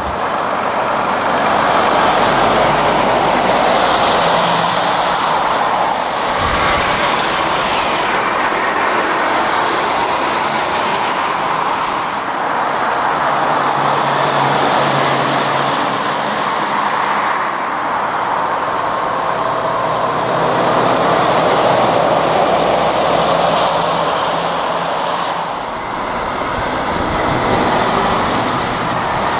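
Road traffic of heavy diesel lorries and cars passing on wet tarmac. There is a steady tyre swish with engine drone, swelling and fading as each vehicle goes by.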